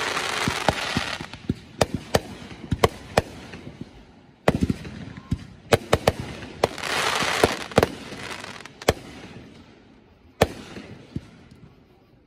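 Aerial fireworks shells bursting overhead in a run of sharp bangs, with two spells of dense crackling from glittering stars: one at the start and one about two-thirds of the way in. The bangs thin out and fade toward the end.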